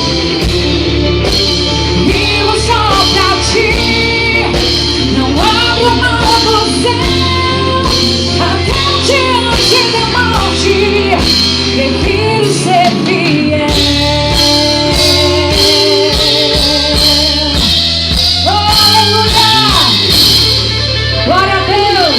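Live Christian rock band playing at full volume: steady drums and bass under keyboards and electric guitar, with a sung or lead melody line that bends and glides in pitch.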